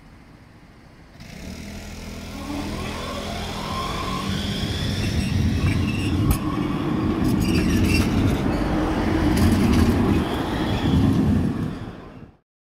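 Electric low-floor tram pulling away and passing close by: a low rumble of wheels on rails builds about a second in, with a motor whine rising in pitch as it gathers speed. It fades near the end.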